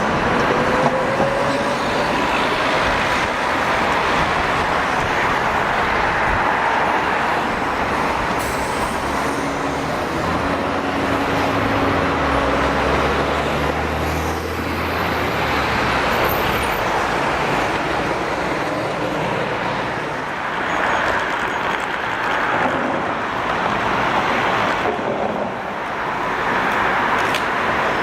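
City street traffic with a Tatra T3 tram running by. A faint rising whine near the start fits its traction motors, and a low hum from another vehicle's engine comes in about ten to fourteen seconds in.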